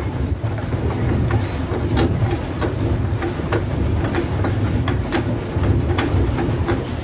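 A swan boat under way: a steady low rumble with scattered clicks and rattles from its drive.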